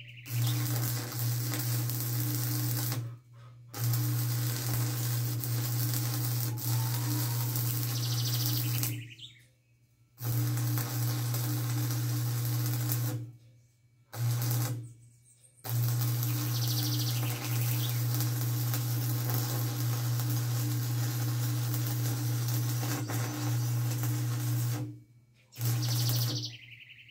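A machine running with a steady low hum and a hissing, crackling noise, stopping abruptly and starting again five times.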